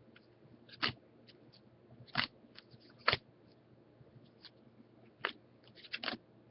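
Topps baseball cards being flipped through by hand: a scattered series of about six short, crisp snaps and clicks of card stock.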